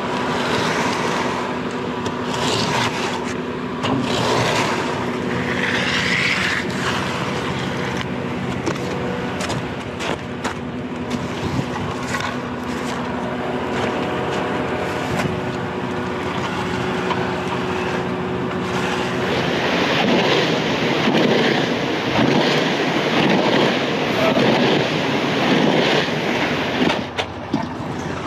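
Diesel engine of a concrete mixer truck running steadily with a hum, with scattered scrapes and clicks from work on the wet concrete. About two-thirds of the way through, a rougher rushing, scraping noise takes over.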